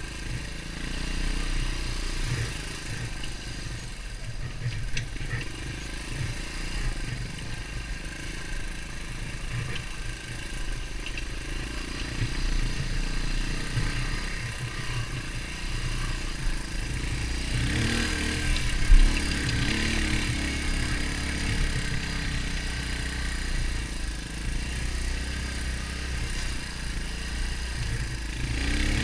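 Beta Alp 200's single-cylinder four-stroke engine running as the dirt bike rides a trail, with the revs rising and falling about two-thirds of the way through. A sharp thump near the same point is the loudest sound.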